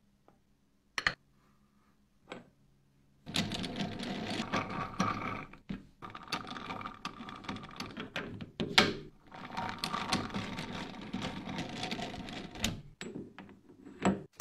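Steel three-jaw chuck on a milling machine's dividing head being worked by hand, its jaws and scroll clicking and rattling metal on metal. A single sharp click comes about a second in, and a dense, uneven run of clicks and rattles begins a little after three seconds.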